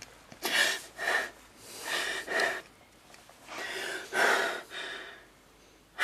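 A woman sobbing: a string of breathy sobs with short pauses between them.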